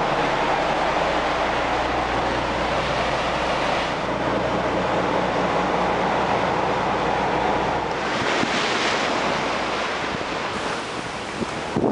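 Motor yacht running at speed: a steady low engine drone under rushing water and wind noise. About eight seconds in the drone fades back and the hiss of wind and spray takes over.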